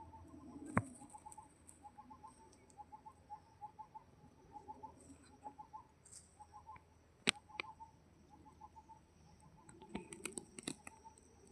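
Outdoor wildlife: short chirping calls repeating in quick little groups over a steady high-pitched insect buzz, with a few sharp clicks, most of them near the end.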